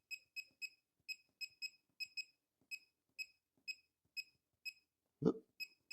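Laser projection keyboard beeping once for each key typed: about fifteen short, identical high-pitched beeps at an uneven typing pace, with a dull knock near the end.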